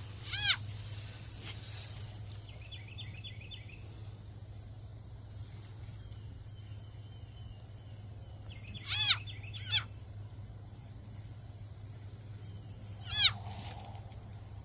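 Short, sharp calls from an unidentified animal: one about half a second in, two in quick succession around the middle, and one near the end. Faint small bird chirps come between them, over a steady high-pitched insect-like whine.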